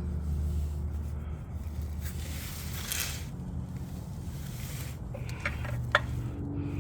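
A wrench working on a Fumoto quick drain valve in the engine's oil drain port: a rustling scrape about two to three seconds in, then a few sharp metallic clicks near the end, the last the loudest. A steady low hum lies underneath.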